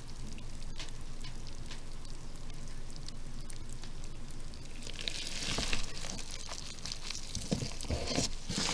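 Moist worm bin crackling and popping softly with many fine clicks as red wigglers move through the wet bedding. The crackle grows denser and louder from about halfway.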